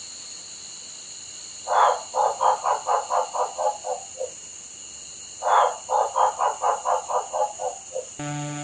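Waxy monkey frog calling twice, each call a longer opening note followed by a quick run of about a dozen short clucking pulses, about five a second, dropping slightly in pitch at the end.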